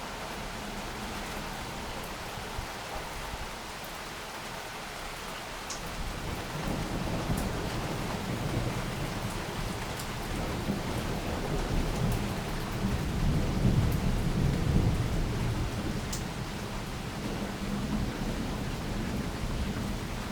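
Steady heavy rain with a long roll of thunder that starts about six seconds in, builds to a peak partway through and slowly dies away.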